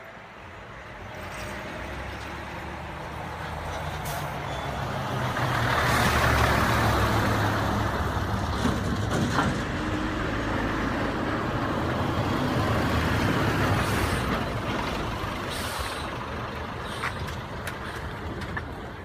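A heavy truck engine running steadily, growing louder about five seconds in and slowly easing off toward the end.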